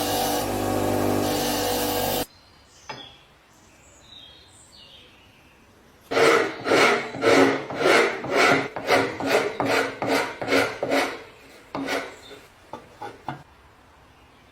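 A power tool runs steadily and cuts off about two seconds in. After a pause, about a dozen quick, even hand strokes of an abrasive rasp across the work, roughly two to three a second, followed by a few light knocks.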